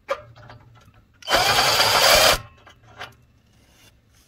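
Cordless drill/driver running once for about a second, about a second in, driving out the screw that holds the water heater's pilot assembly to its bracket. There are a few faint clicks around it.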